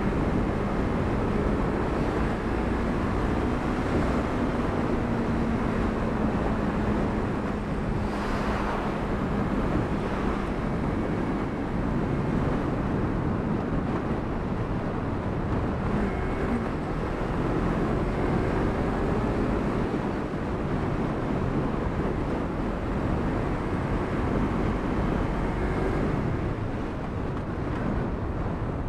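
Yamaha MT-03 motorcycle cruising at about 40 mph, its engine running steadily under a constant rush of wind and road noise on the camera microphone.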